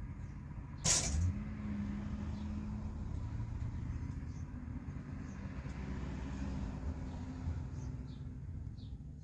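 A heavy road vehicle's engine runs with a steady low rumble, with a sharp short hiss about a second in. Faint short bird chirps sound high above it several times.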